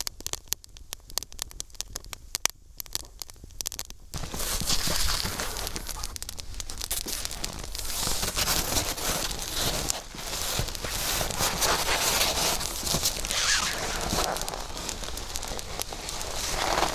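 Wood campfire crackling with sparse sharp pops. About four seconds in it turns louder and denser: a steady crackling hiss with many pops, mixed with rustling.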